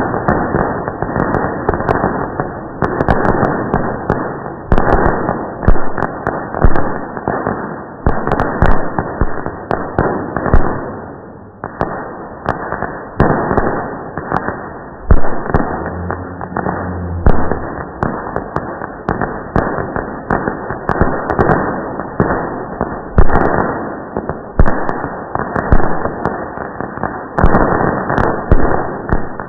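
Fireworks going off in a dense, continuous barrage of bangs and crackling, with a short lull about halfway through. The audio is slowed about seven times along with the 240 fps footage, so the bangs come out low-pitched and drawn out.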